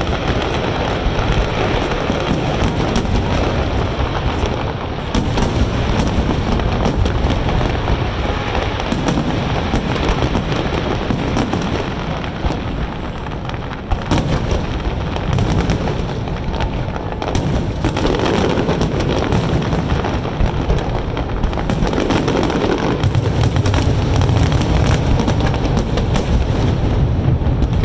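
Large aerial fireworks display going off nonstop: a dense, overlapping barrage of booms and crackling, with the low booms heaviest near the end.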